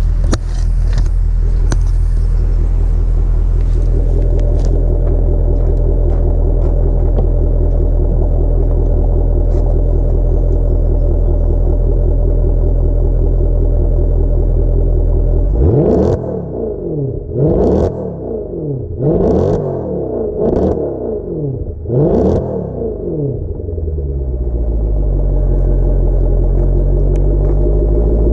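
Mercedes-AMG C63's V8, with its secondary catalytic converters and resonators deleted, idling steadily. About halfway through it is blipped in a quick series of revs, then it drops back to idle.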